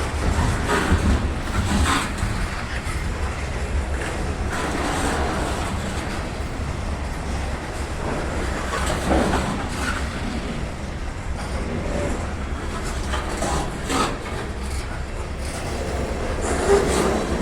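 BNSF freight train cars rolling past with a steady low rumble, wheels knocking and clacking irregularly over the rail joints.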